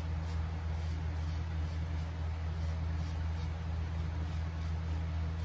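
Double-edge safety razor scraping through lathered beard stubble, faint over a steady low hum.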